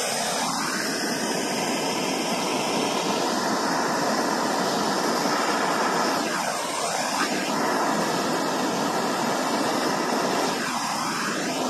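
Handheld BernzOmatic gas torch burning with a steady roaring hiss, its flame held on a pile of powdered coffee creamer. The tone of the hiss sweeps down and back up a few times.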